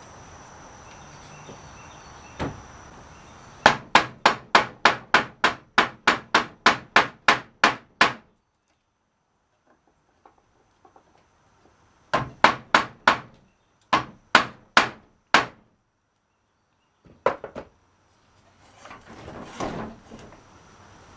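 Hammer striking wood in quick runs of sharp blows, about three a second: a long run of about fourteen, a pause, a second run of about nine, then a couple more, followed by a brief scraping near the end.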